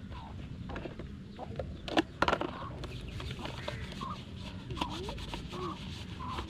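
Chickens clucking, with short calls in the second half and two sharp knocks about two seconds in.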